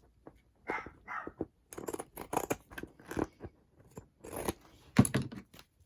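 Scissors cutting paper in a string of irregular snips and crunches, with paper rustling as it is handled; a sharp snip about five seconds in is the loudest.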